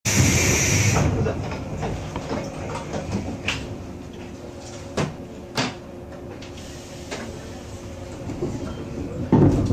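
Electric train noise at a railway station platform. A loud hiss fills the first second, then a low steady rumble with a faint hum continues, broken by three sharp clacks in the middle.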